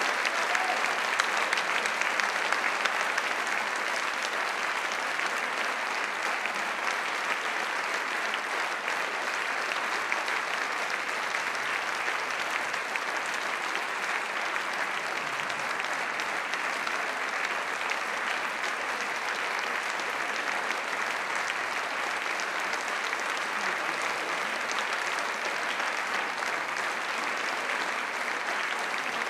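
Audience applauding steadily, a dense even clatter of many hands clapping, a little louder in the first few seconds.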